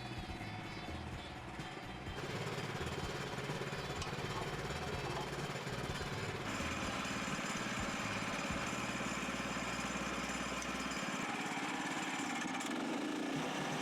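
Small gas engine of a Woodland Mills HM122 portable band sawmill running steadily, growing louder about two seconds in and again partway through.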